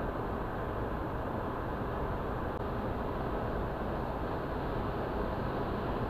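Steady road noise inside a car's cabin while driving on a highway: an even rush of tyres, wind and engine with no changes.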